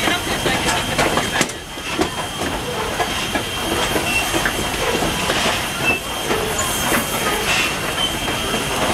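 Steam locomotive (former Canadian National 2-6-0 No. 89) and its train running along the line. There is a steady rumble and steam hiss, with irregular clicks of the wheels over rail joints and a thin, steady high whine.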